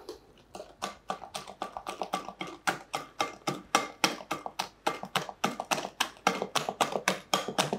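Wire balloon whisk beating thick cake batter in a glass bowl, its wires clicking against the glass in a fast, even rhythm of about six strokes a second, starting about half a second in.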